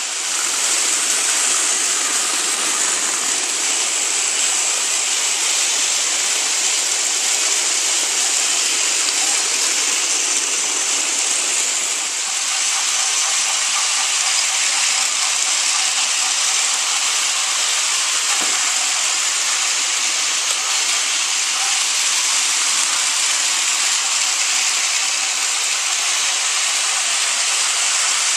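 Sixteen battery-powered Thomas Trackmaster toy engines running at once on plastic track. Their small motors and wheels make a dense, steady whir.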